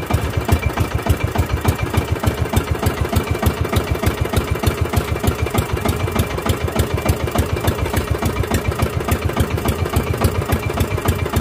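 Small inboard engine of a motorized outrigger fishing boat (bangka) running steadily with an even, rapid putter.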